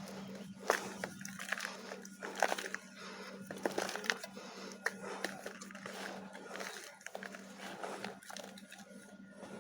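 Dry chunks of Multani mitti (fuller's earth clay) crumbling: a dense run of small crunches and crackles with several sharper snaps, over a steady low hum.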